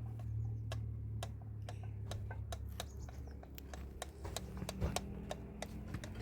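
Irregular sharp clicks or taps, a few a second, over a steady low hum.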